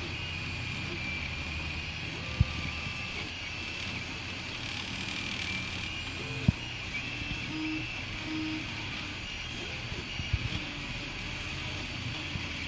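A 3D printer running a print: a steady whir from its fans, with short stepper-motor tones that jump in pitch as the head moves, and a couple of sharp clicks.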